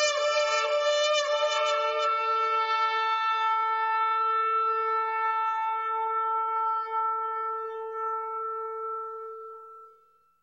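A shofar blown in one long blast. The note wavers for the first couple of seconds, then holds steady and fades away near the end.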